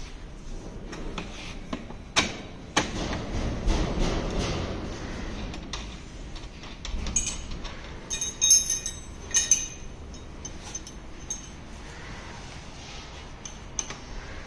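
Knocks and a scraping rub, then a cluster of light metallic clinks with a brief ring about eight to ten seconds in, as an electric scooter's front wheel is fitted into the fork and its steel axle and nut are put in.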